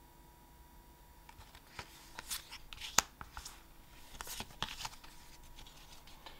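Trading cards being handled: short papery rustles and light flicks as cards slide off the stack, starting about a second in, with one sharp snap about three seconds in.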